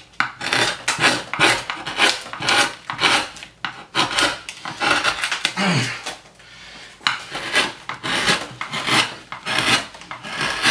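Hand gouge cutting into a plywood woodcut block: a run of short scraping strokes, about two a second, that pause briefly a little past halfway and then start again.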